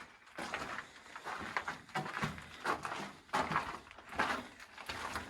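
Footsteps crunching on loose, gravelly ground, about one step every three quarters of a second.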